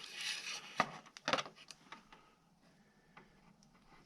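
Handling noise as a power-socket cable is fed through the motorcycle's fairing: a brief rustle and a few light clicks and knocks in the first second and a half, then only faint sounds.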